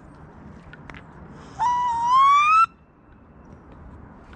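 One loud bird call, about a second long, starting about one and a half seconds in: a clear note that steps up and then rises in pitch before it cuts off.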